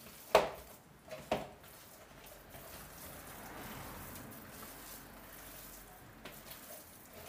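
Hands squishing and kneading a wet ground-meat, egg and milk meatball mixture in a plastic bowl, with two sharp knocks about a second apart near the start.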